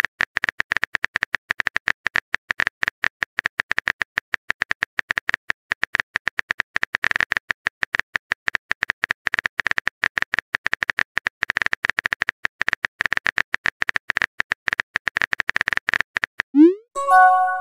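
Simulated phone-keyboard typing clicks from a texting-story app: a rapid, irregular run of key taps. Near the end comes a rising swoop and a short chime, the message-sent sound.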